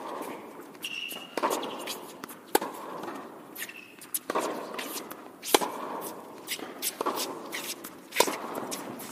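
Tennis ball rally on an indoor hard court: sharp racket hits and ball bounces about every second and a half, each echoing around the hall, with a brief high squeak about a second in.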